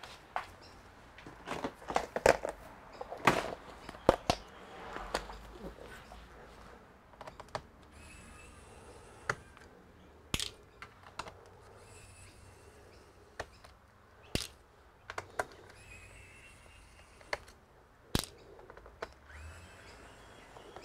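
Small pen-style electric screwdriver running in short spells as it backs out the bottom-case screws of an HP 14-cf laptop, with sharp clicks and knocks from the laptop case being handled, loudest in the first few seconds.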